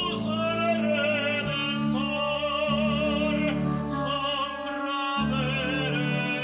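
Operatic singing over an instrumental accompaniment: a voice holding long notes with a wide vibrato above sustained low chords.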